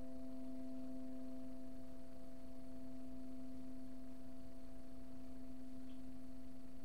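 Crystal singing bowl ringing with one steady, sustained low tone and two fainter higher overtones, holding an even level throughout.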